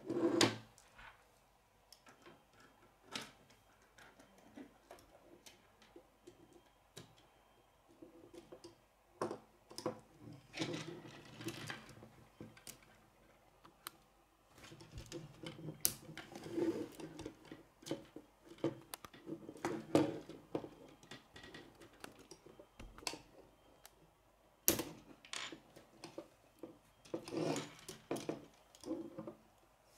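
Plastic K'nex rods and connectors clicking and rattling as they are handled and snapped together, in scattered bursts, with a few sharper snaps.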